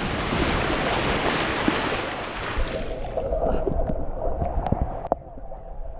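Rushing water and wind noise on the microphone of a rider sliding down a steep body water slide. The rush eases off about three seconds in as the ride slows in the run-out, leaving a quieter background with a few knocks and a sharp click near the end.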